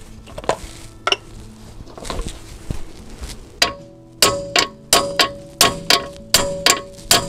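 Hand ratchet turning the 17 mm nut on the upper control-arm ball joint, with pliers holding the stud. After some handling knocks, a run of sharp metallic ratchet clicks with a brief ring starts about three and a half seconds in, about three a second.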